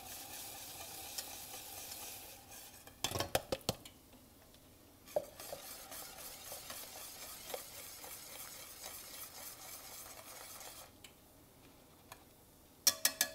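Raw grits being poured into boiling broth and milk in a stainless steel saucepan, then a wire whisk stirring them through, with clinks of metal on the pan about three seconds in and again near the end. Bacon sizzles faintly in a skillet underneath.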